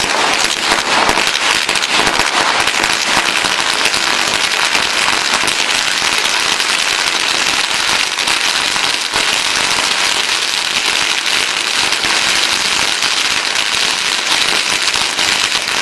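A string of firecrackers going off as a fast, unbroken crackle of small bangs, holding at an even loudness.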